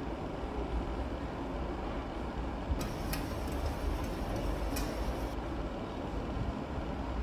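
Chef's knife slicing a red onion on a plastic cutting board, with a few light taps of the blade against the board between about three and five seconds in, over a steady low background rumble.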